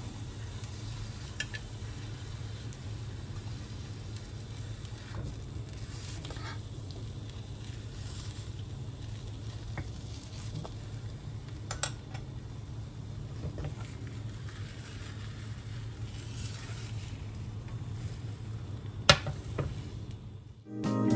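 Egg cooking with a faint sizzle in a rectangular nonstick egg roll pan, over a steady low hum. Wooden chopsticks and a silicone spatula tap and scrape against the pan now and then, and the sharpest click comes near the end.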